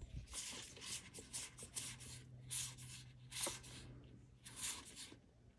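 Magic: The Gathering cards sliding against each other as they are flipped through by hand, a series of soft papery swishes about every half second.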